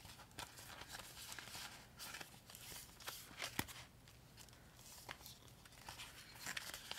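Faint rustling and crinkling of paper banknotes and clear plastic binder pouches as cash is handled and slid into an envelope, with soft taps and one sharper tick about three and a half seconds in.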